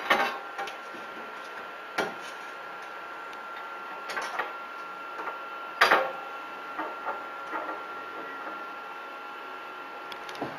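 A screwdriver and hands fitting a handle onto a 3D printer's frame: scattered sharp clicks and knocks of tool and parts, the loudest right at the start and about six seconds in. A faint steady high whine runs underneath.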